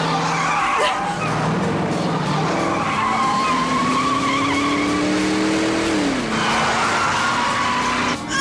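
Car engine revving hard and tyres squealing as a car speeds through a chase. The engine pitch climbs for a few seconds and drops about six seconds in.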